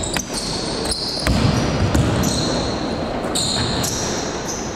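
Basketball bouncing on a gym floor during play: a few sharp knocks in the first second over the steady noise of the hall.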